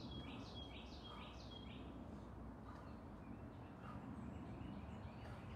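A songbird singing over faint steady background noise: a run of about five quick repeated high notes at the start, then fainter scattered chirps.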